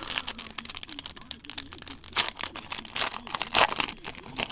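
Trading card pack wrapper being crinkled and torn open by hand: a dense run of rapid crackles and small tearing sounds, with a few louder crinkles scattered through.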